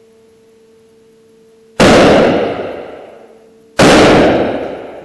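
Two loud shots about two seconds apart from a cartridge-fired captive-bolt stunning gun used on cattle in a steel stun box. Each shot rings on in the hard-walled room for over a second.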